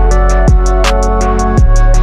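Background music with a beat: sustained notes over deep kick-drum hits that drop in pitch, and a snare hit.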